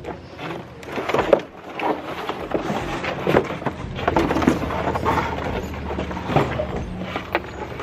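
Scrap wood and cardboard demolition debris being tossed from a truck bed into a metal dumpster: a run of irregular knocks and clatters.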